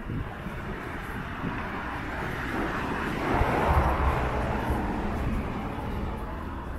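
A road vehicle passing by. Its engine and tyre noise builds to a peak about three and a half seconds in, then fades away.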